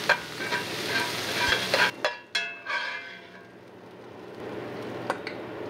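Bacon and diced onion sizzling in a cast iron skillet as the bacon fat renders, with a metal spatula stirring and scraping them. The sizzle cuts off sharply about two seconds in and goes on much fainter and duller after.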